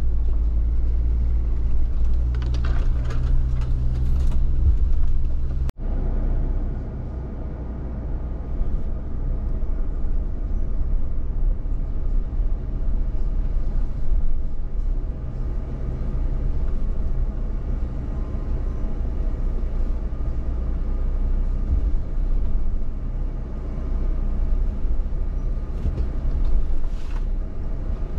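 An off-road vehicle's engine running with a steady low rumble. About six seconds in the sound breaks off for an instant, then resumes noisier and rougher.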